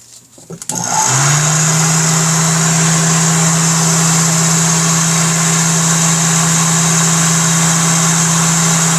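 Electric heat gun switched on about a second in, then running steadily with a low motor hum under a loud rush of hot air.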